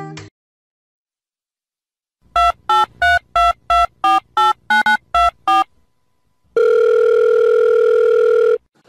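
Telephone keypad tones: about eleven short beeps at roughly three a second, like a number being dialled, then one long steady phone tone of about two seconds that cuts off abruptly.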